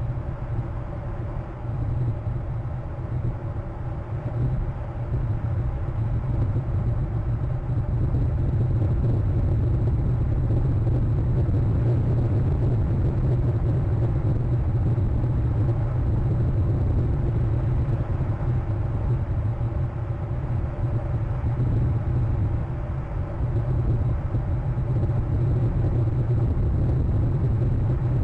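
Steady low engine rumble, growing louder over the first several seconds and then holding steady.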